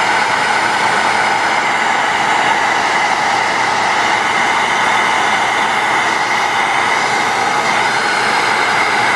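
Handheld heat gun running steadily, its fan giving a constant rush of air with an even whine over it.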